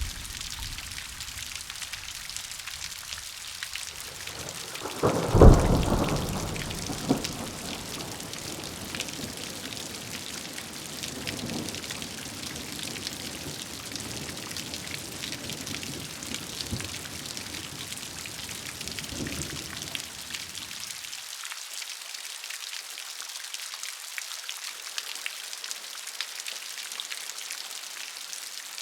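Steady rain hissing, with a loud clap of thunder about five seconds in that rumbles away over a couple of seconds, then fainter rumbles. Near the two-thirds mark the low rumbling stops and only the rain remains.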